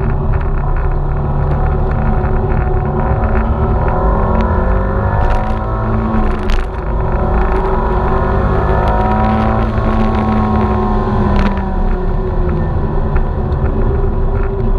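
Turbocharged Subaru Forester XT engine running hard, with its pitch rising and falling several times through the middle as the car accelerates and slows.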